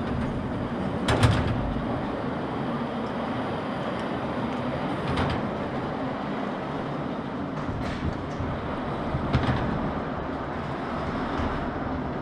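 Steady rumbling noise of a vehicle on the move, with three stronger bumps or knocks about four seconds apart.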